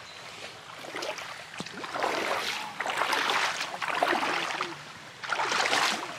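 A person in waders wading through shallow water, the water sloshing and splashing with each step: a long stretch of sloshing from about two seconds in and another short burst near the end.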